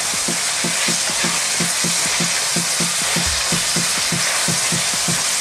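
Goat meat, mushrooms and capsicum sizzling in a hot wok as a wooden spatula stirs them. A steady low pulse, about four to five a second, runs underneath.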